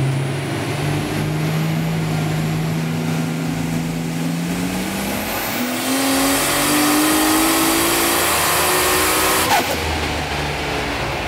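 Nissan RB26DETT straight-six in an R32 Skyline GT-R, single-turbocharged and running with its air filter removed, making a full-throttle dyno pull. The engine note climbs steadily for about nine seconds with a faint high whine rising above it. Near the end the pull cuts off sharply and the engine drops back to a low note.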